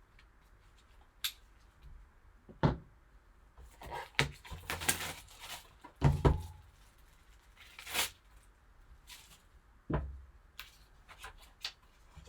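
A sealed trading-card box being opened and its contents handled: scattered crisp taps and clicks of cardboard and plastic packaging, with a short stretch of rustling and tearing about four to five seconds in.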